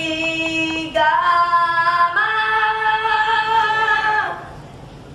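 A young voice singing unaccompanied on stage, holding three long notes at different pitches, then stopping about four seconds in.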